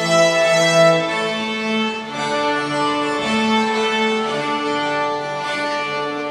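A young pupils' string ensemble of violins and a cello playing a piece in long bowed notes, the notes changing about once a second.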